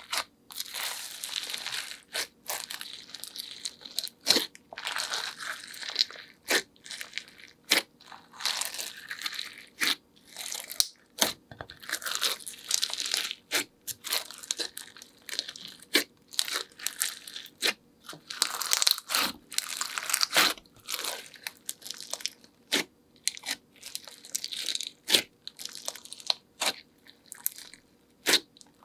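Glossy slime being mixed and pressed by hand, with add-ins worked in. It makes irregular sharp sticky pops and clicks and bursts of crackly crunching.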